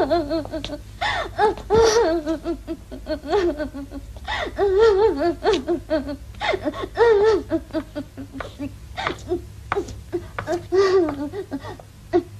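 A young woman sobbing hard: wavering, high-pitched cries come in repeated bursts about once a second, with short gasping breaths between them.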